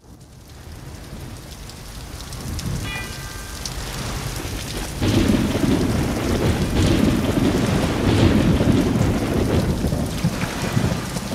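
Rain and thunder, most likely a storm soundtrack: steady rain fading in, then a long heavy rumble of thunder swelling about five seconds in.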